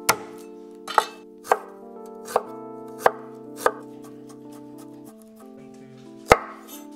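Chinese cleaver chopping scallions on a wooden cutting board: about seven sharp knocks at an uneven pace, the loudest one near the end. Soft background music with held chords plays underneath.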